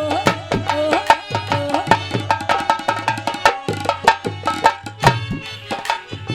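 Instrumental accompaniment of a Haryanvi ragni: a hand drum plays a fast, even rhythm of strokes under a melody instrument, with no singing.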